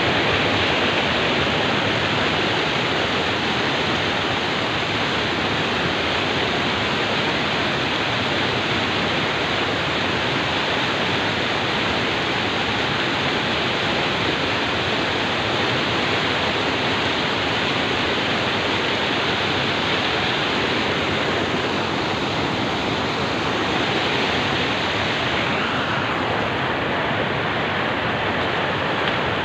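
Steady loud rushing noise, like fast-running water.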